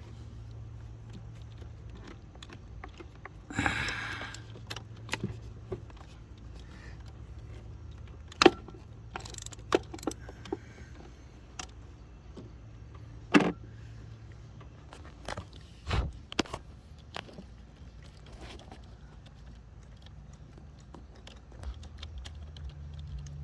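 Metal hand tools clinking and knocking in a car's engine bay: scattered sharp clicks, a short rattle about four seconds in, and a few louder knocks, over a steady low hum.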